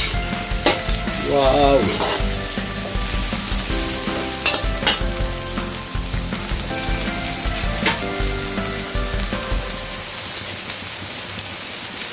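Julienned carrots, onion, ginger and garlic sizzling in oil in a metal wok as they are stir-fried with a metal ladle, which scrapes and knocks against the pan a few times. The stirring stops about ten seconds in, leaving only the sizzle.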